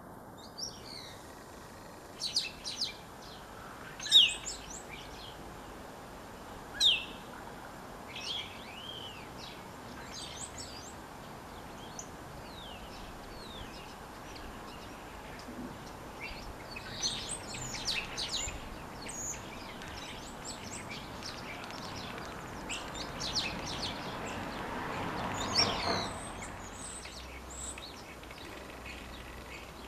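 Common starling singing and calling: a varied, stop-start run of short whistles, clicks and chirps, with a couple of sharp loud notes a few seconds in and busier runs later. Under the song, a low rushing noise swells and cuts off suddenly about 26 seconds in.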